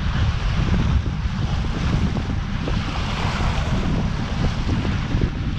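Water rushing and splashing along the hull of a sailboat under sail through open-sea waves, with wind buffeting the microphone in a steady low rumble.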